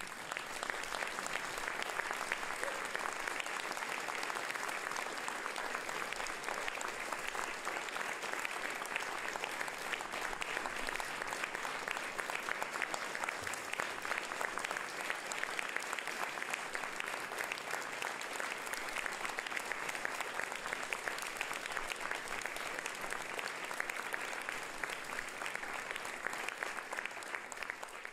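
Audience applauding steadily, a dense patter of many hands clapping, fading away at the very end.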